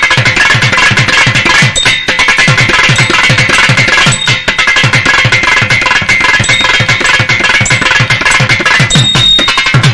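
Thavil drumming in a thani avarthanam solo: a dense run of sharp, rapid strokes, with deep bass strokes falling in pitch several times a second.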